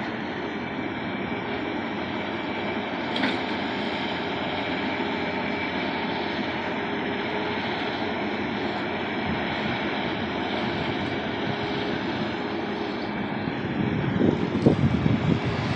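Heavy diesel earthmoving machinery running steadily: a Caterpillar 330BL excavator working as it digs sand. About 14 s in the sound gets louder and more uneven as a Caterpillar D9R bulldozer comes into play nearby.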